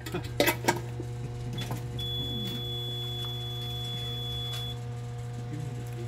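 Siemens Cerberus PRO fire alarm panel giving a steady high-pitched electronic beep for about three seconds. Under it run a constant electrical hum and a few low steady tones, with several sharp clicks near the start as the handheld paging microphone is handled.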